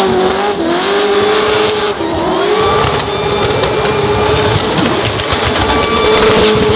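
BMW E92 drift car's engine held at high revs through a smoky drift, its pitch dipping and climbing again twice early on, then held steady and high.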